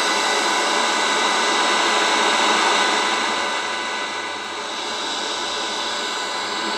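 Untuned FM radio static from a small portable Bluetooth speaker's FM tuner: a steady hiss with faint steady tones in it, turned down a little about four seconds in.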